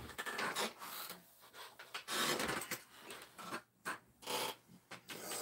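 Handling noise: irregular rustling and rubbing in several short bursts.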